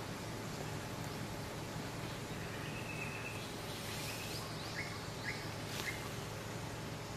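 Outdoor forest ambience: a steady background hiss with short bird chirps, more of them in the second half.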